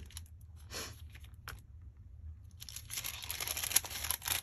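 Paper rustling and crinkling as a translucent paper envelope and small paper labels are handled: a brief rustle about a second in, then a longer, denser stretch of crinkling with small clicks from about three seconds in.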